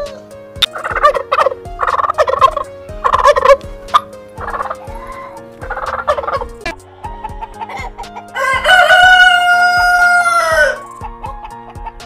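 Domestic turkeys gobbling in several short, rattling bursts, followed about eight seconds in by a rooster crowing once in a long call that falls away at the end. Soft background music plays underneath.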